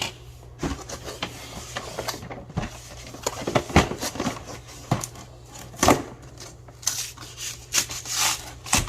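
A cardboard toy box being opened and its packaging handled: irregular clicks and knocks with scraping and rustling, and a longer rustle or rip near the end.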